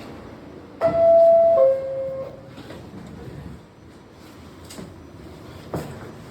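New York subway car's two-note descending door chime, a held higher tone stepping down to a lower one, over the steady rumble of the train and station. A sharp knock follows near the end.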